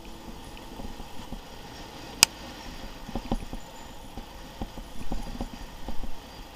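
Trail motorcycle ridden over a rough, stony dirt track: irregular knocks and rattles as the bike jolts over stones and ruts, with one sharp click about two seconds in.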